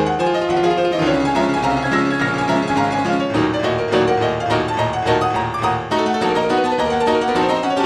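Solo piano music with quick runs of short notes.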